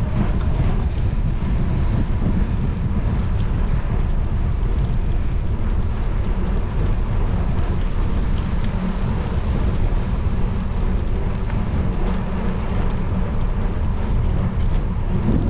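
Wind buffeting the microphone of a moving camera: a steady, low rumble with no other sound standing out.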